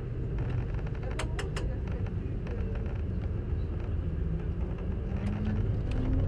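Steady low rumble of a road vehicle driving, with two sharp clicks a little over a second in.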